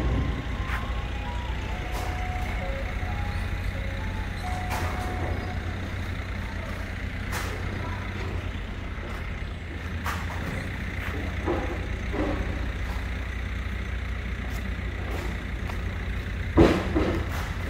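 A steady low engine rumble from heavy machinery, with a short run of electronic beeps at changing pitches in the first five seconds. There are scattered clanks and a sharp knock near the end.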